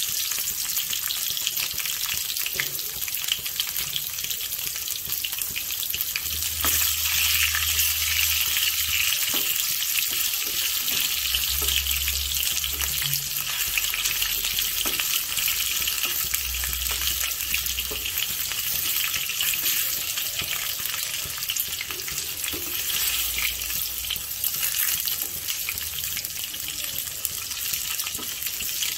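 Crushed, unpeeled garlic cloves frying in hot oil, a steady sizzle, as they brown for a tadka.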